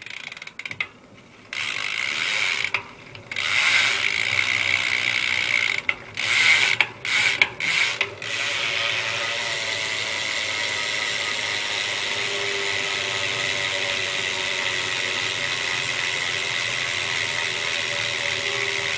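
Eastern Bi-Directional BMX rear hub freewheeling: the pawls click over the ratchet in a fast, even buzz. There are several short spins in the first few seconds, then one long steady spin from about eight seconds in.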